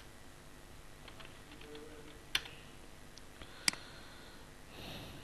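Computer keyboard being typed on: a few light keystrokes, then two sharper, louder clicks a little over a second apart.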